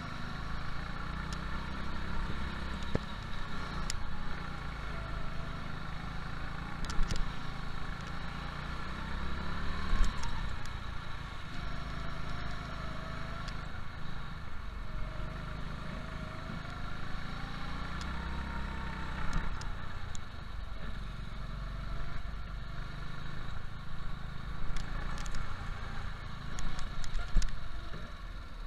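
Go-kart engine heard from onboard during laps of an indoor track, its pitch rising and falling as the kart accelerates out of corners and slows into them. Occasional sharp knocks and rattles come through, loudest around the tenth second and near the end.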